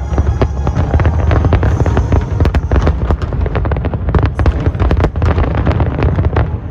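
Fireworks display: a rapid, dense volley of shell bursts and crackling, many sharp bangs a second over a continuous deep booming.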